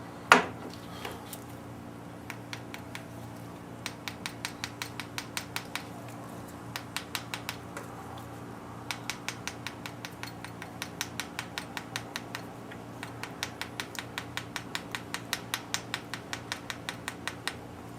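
A valve being hand-lapped against its seat in a Ford 302 cylinder head with fine lapping compound: quick gritty clicks, about five a second, in runs of a second or two as the lapping stick is twisted back and forth. A single sharp knock comes just after the start.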